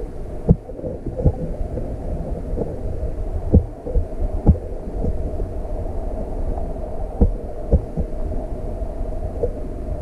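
Muffled underwater sound of flowing stream water picked up by a GoPro in its waterproof housing: a steady low rumble with a few dull knocks scattered through it.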